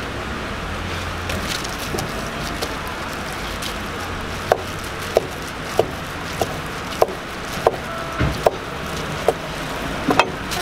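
Cleaver chopping sundae (Korean blood sausage) on a wooden cutting board: about ten sharp knocks, roughly one every two-thirds of a second, starting about four seconds in, over steady background noise.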